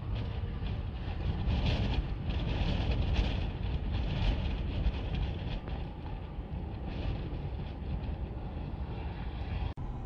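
Strong gusting wind buffeting the microphone: a heavy low rumble that swells and eases, with a hiss above it. The sound drops out briefly near the end.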